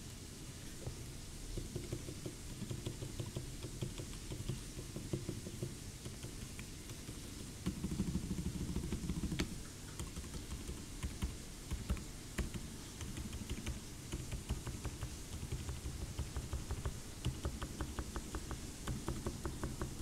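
Modifier keys on a 60% mechanical keyboard with stock 68g Outemu Silent Forest switches and lubed Cherry screw-in stabilisers, pressed over and over with the board directly on the desk (no deskmat). The keystrokes are dampened and low-pitched with faint light clicks, and there is a louder, quicker flurry about halfway through.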